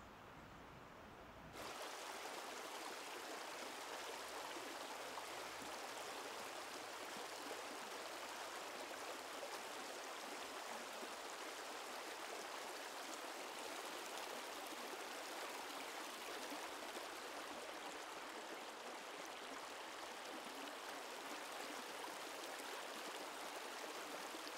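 Shallow, stony stream flowing: a steady wash of water that cuts in suddenly about a second and a half in.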